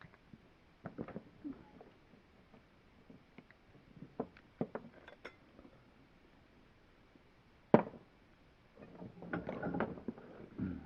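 Scattered clicks and knocks of small metal and plastic parts being handled, with one loud sharp knock about three-quarters of the way through and a short burst of clattering near the end.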